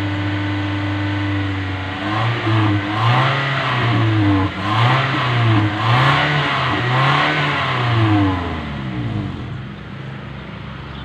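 Toyota Innova engine running steadily, then from about two seconds in revved up and back down about five times in quick succession before settling back toward idle. The engine is being revved to blow carbon out through the exhaust during a decarbonising treatment.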